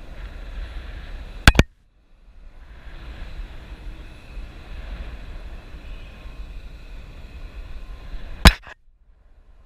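Wind rumbling on the microphone during parasailing, broken twice by a sharp, very loud click, about a second and a half in and near the end, each followed by a brief cut-out of the sound.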